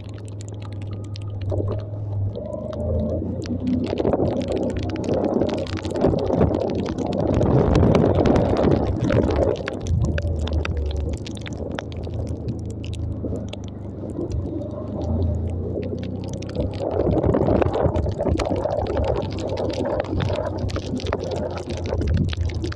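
Small motorcycle engine running at low speed, with wind rushing over the microphone that swells louder twice.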